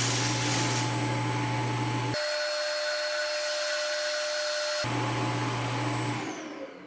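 Roborock Saros Z70 dock emptying the robot's dustbin: its auto-empty suction motor runs with a steady rushing noise and hum. The sound shifts abruptly for a couple of seconds midway, then winds down near the end with a falling whine as the motor spins down.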